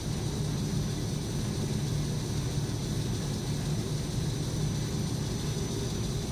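Mercer glass-grinding lathe running steadily, a low, even motor hum with faint high whine, spinning a felt cerium polishing wheel while the water feed wets its surface.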